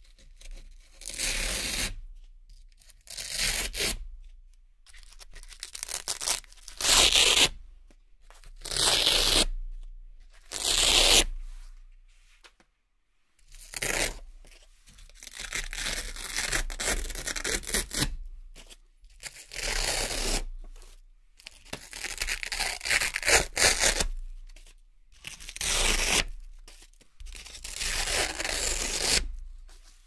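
Velcro (hook-and-loop) pieces being peeled apart by hand, one after another: about a dozen crisp ripping rasps, each a second or two long, with short pauses between.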